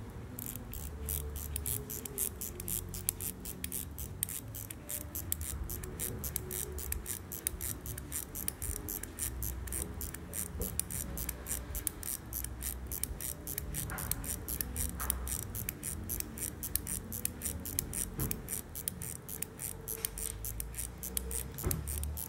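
Mechanical watch movement (Cortebert, AS 1560 calibre, 17 jewels) ticking: an even, rapid stream of sharp ticks, several a second.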